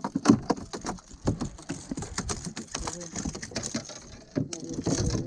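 A freshly landed snapper flapping on the fiberglass deck of a small boat: a run of irregular slaps and knocks.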